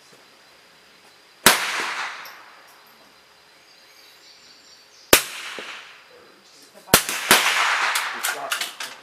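.22 rimfire rifles firing during a smallbore silhouette match: four sharp shots, each trailing off briefly, the last two about half a second apart. A run of fainter clicks and clatter follows near the end.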